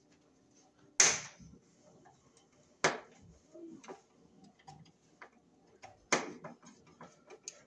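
Sharp metallic clicks and lighter ticks of a copper ground wire and hand tool against a steel electrical sub-panel as the wire is worked into a terminal at the bottom of the bar. Three louder clicks, the loudest about a second in, with faint ticks between.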